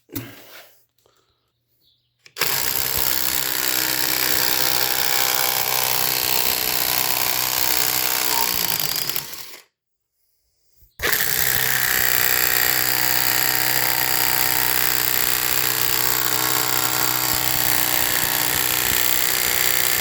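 Impact wrench running in two long bursts, a few seconds apart, while taking the lug nuts off a wheel.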